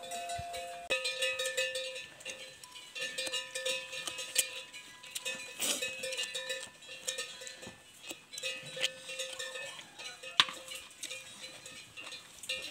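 Neck bells on grazing water buffalo clonking irregularly, several knocks with a ringing tone that hangs on between them, and one sharper knock near the end.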